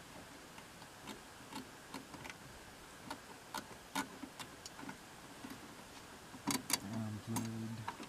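Light scattered clicks and taps of hands handling the wiring plugs and control board inside an RV propane fridge's rear access panel, with a quick cluster of louder clicks about six and a half seconds in and two short low hums near the end.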